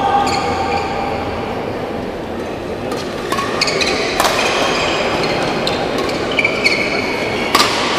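A badminton rally: several sharp racket hits on the shuttlecock, with rubber-soled shoes squeaking on the court floor in short high chirps between them, over a steady murmur of the hall.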